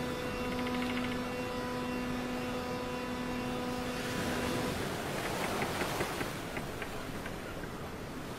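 Dark ambient horror sound design: a steady low drone with higher overtones over a rushing, hissing noise bed. The drone drops out a little under five seconds in, leaving the rushing noise with faint scattered ticks.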